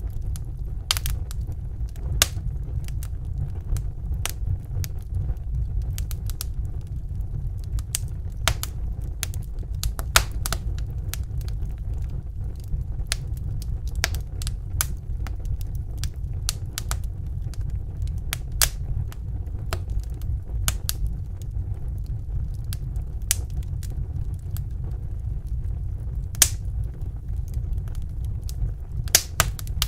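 Fire burning in a fireplace: a steady low rumble with sharp crackles and pops scattered irregularly, about one or two a second.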